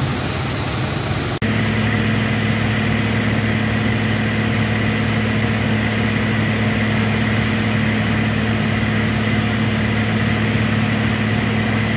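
A truck-mounted drilling rig and its portable air compressor running steadily with a low engine hum. For about the first second and a half a harsher, hissing noise from the drilling at the borehole is heard, then the sound cuts to the even engine note.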